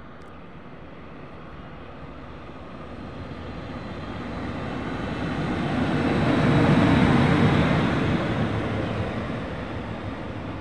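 Electric locomotive running light, passing by: the rumble of its wheels on the rails swells to its loudest about seven seconds in, then fades as it moves away.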